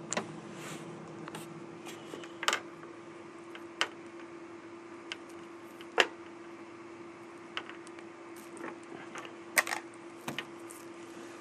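Irregular light clicks and taps of cheap plastic earbuds and their packaging being handled, a dozen or so scattered sharp ticks over a steady low hum.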